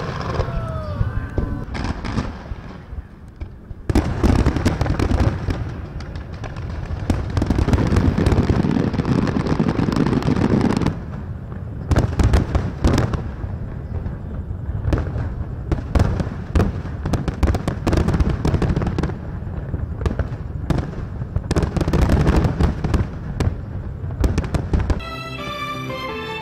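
Large fireworks display: aerial shells bursting in rapid, irregular bangs over dense crackling. Music comes in near the end.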